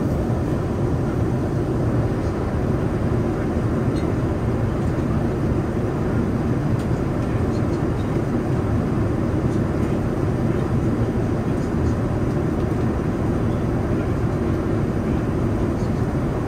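Steady cabin noise of a Boeing 787 Dreamliner in cruise flight: an even, deep rushing that holds level throughout.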